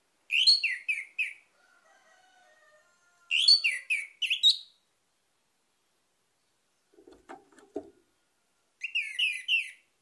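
Orange-headed thrush singing in three short bursts of quick, high, whistled notes: one at the start, one about three seconds in, one near the end. A soft, brief low sound with a few clicks comes about seven seconds in.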